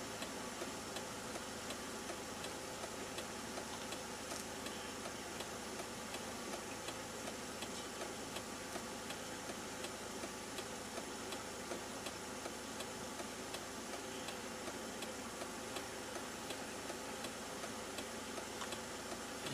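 Faint steady mechanical hum and hiss with light, evenly spaced ticking; no calls from the moose are heard.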